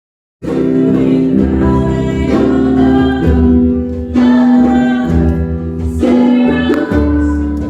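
A choir singing a gospel-style church song in long held notes, starting abruptly about half a second in.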